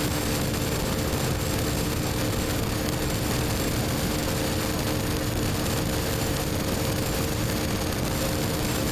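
BMW R1250GS Adventure's boxer twin running at a steady cruise through an Akrapovic slip-on exhaust, with a constant engine note over rushing wind and road noise.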